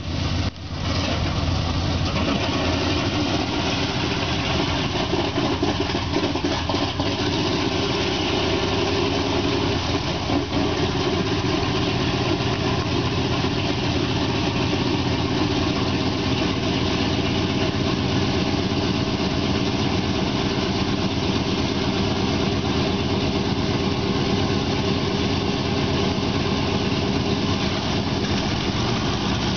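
The B-17's number 1 and 2 engines, nine-cylinder Wright Cyclone radials, running steadily at idle just after being started.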